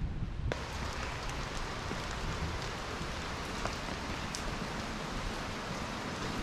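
Steady rain falling on wet pavement and a roof, an even hiss with scattered drip ticks; the hiss starts suddenly about half a second in.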